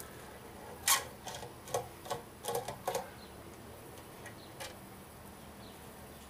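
Small metallic clicks and clinks of a screwdriver and loose parts on a Briggs & Stratton carburetor being taken apart. A sharp click comes about a second in, a quick run of clicks follows over the next two seconds, then one faint click.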